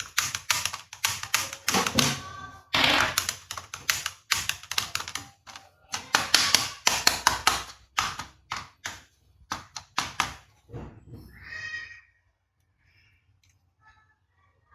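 Rapid clicking, tapping and clattering of hard plastic toy pistols being handled, dense for about eleven seconds and then stopping.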